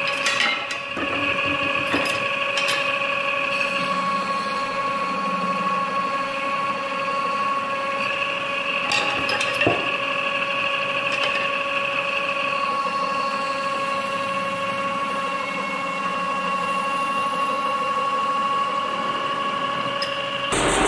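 Metal-spinning lathe running with a steady whine while a hand tool is held against the turning copper workpiece. A higher scraping tone from the tool on the metal comes and goes, with a few sharp clicks.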